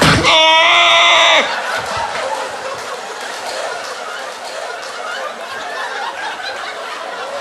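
A man's loud, harsh vocal imitation of an annoying noise, warbling at first and then held for about a second and a half, followed by a crowd laughing.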